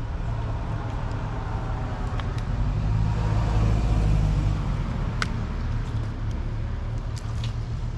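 Mini excavator's engine running steadily, getting louder for a couple of seconds in the middle, with a few light clicks and knocks over it.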